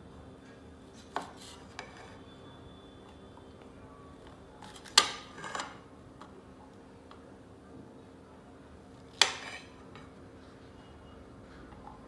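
A few sharp clinks and knocks of a utensil and food against a plate, the two loudest about five and nine seconds in.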